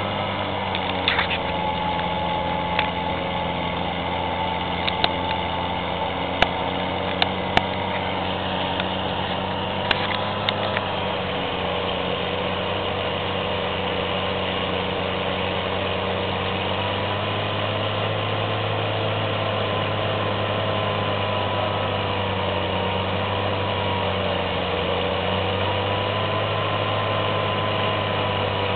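Engine running steadily, its pitch wavering slightly now and then, with a few sharp clicks in the first ten seconds or so.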